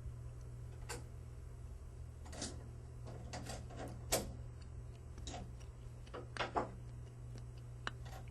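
Scattered small clicks and light knocks of faucet parts being handled as a replacement cartridge and handle trim are fitted on a widespread lavatory faucet, the sharpest knock a little past four seconds in, over a steady low hum.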